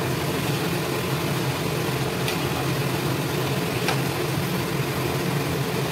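Sweet potato slices frying in oil and melted sugar in a wok, a steady sizzle over a constant mechanical hum. A metal spatula clicks against the wok twice, about two and four seconds in.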